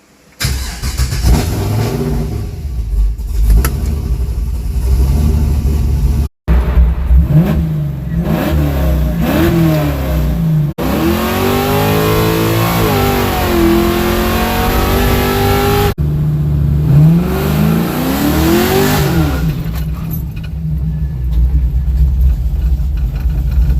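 GM LQ9 6.0-litre V8 with newly replaced lifters starting up and being revved repeatedly, rising and falling several times. For about five seconds in the middle it revs high under a loud rushing noise. The sound breaks off abruptly three times.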